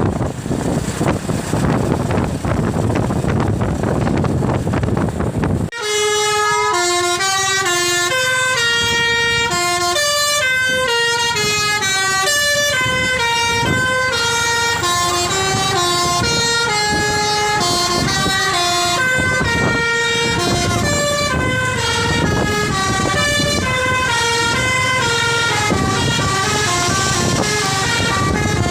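A bus's basuri telolet horn playing a long tune of quick stepped notes that hop up and down, starting about six seconds in and carrying on without a break. Before it there is a steady rush of wind and traffic.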